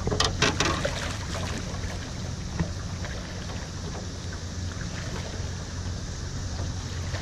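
Small Mercury 2.5 hp outboard motor idling steadily, with water hiss around the boat. A few splashes and knocks in the first second come as a striped bass is handled and slipped back into the river.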